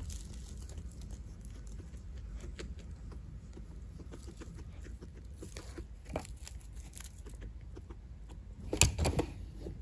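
Guinea pig shuffling and rustling in fluffy paper bedding inside a wooden hideout, with scattered soft clicks and a louder burst of rustling and clicking about nine seconds in.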